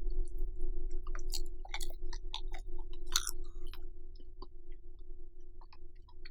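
Close-miked chewing of bacon-wrapped rice cakes: wet, crackly mouth clicks that come thickest in the first half and thin out toward the end, over a steady low hum.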